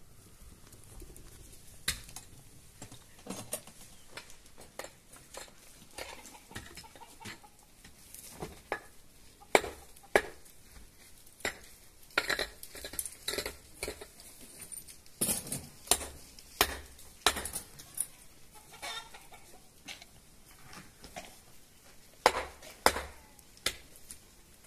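Chickens clucking among irregular sharp knocks and clatter.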